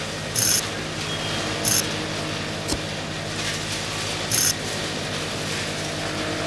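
Small battery-powered DC motor running a miniature vibrating sand sieve, a steady motor hum with the tray's rattle. Short, very high-pitched bursts come four times, about half a second, a second and a half, four and a half seconds and just before the end.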